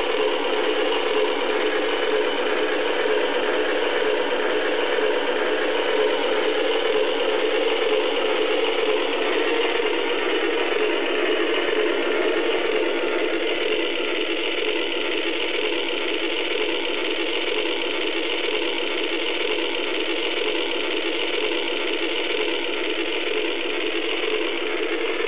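K'nex RC dragster's motor and plastic gears running with a steady, unbroken mechanical whirr.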